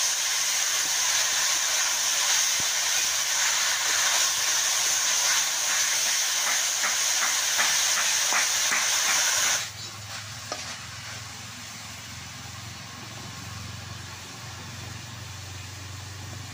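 Grated coconut and jaggery sizzling in an iron karahi, with a spatula scraping through the mixture in quick strokes. About ten seconds in, the sound drops abruptly to a fainter hiss with a low hum.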